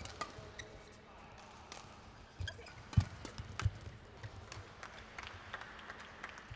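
Badminton rally: sharp racket-on-shuttlecock hits and players' footfalls on the court mat, with a heavier thump about three seconds in.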